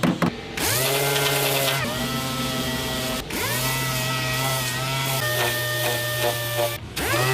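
A small electric power tool's motor spins up, runs at a steady speed for a second or two and stops quickly, three times over. About five seconds in it runs in short, rapid pulses for over a second.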